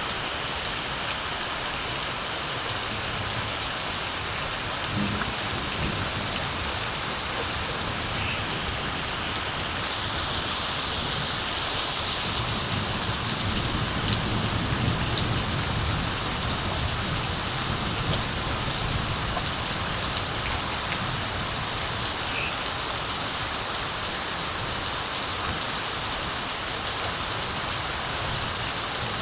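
Steady rain falling, an even hiss of many drops. From about ten seconds in, a low rumble of distant thunder swells and fades again by about seventeen seconds.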